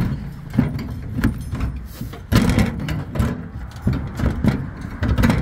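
Irregular knocks and rattles of a compact tractor's sheet-metal bonnet being handled and opened to get at the engine, with one louder clatter about halfway through.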